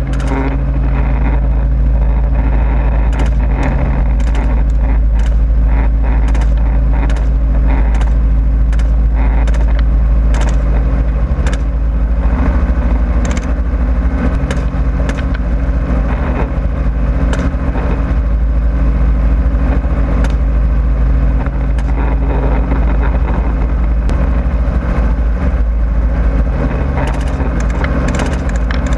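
Helicopter running steadily on board, a deep continuous drone of engine and rotors, with scattered sharp cracks of rifle shots. The shots come thickest in the first twelve seconds and again near the end.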